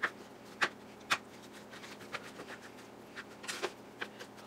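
Chef's knife chopping garlic cloves on a plastic cutting board: irregular sharp taps of the blade on the board, three in the first second or so, then a quick cluster about three and a half seconds in and one more at the end.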